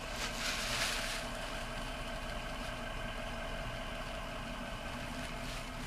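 Steady hum inside a parked car with the engine idling, with faint steady tones over it. A brief soft rustle in the first second.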